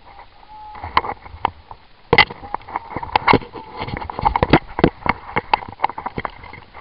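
Irregular sharp knocks and clicks, several a second, from an airsoft player's gear and camera being jostled as he moves and crouches.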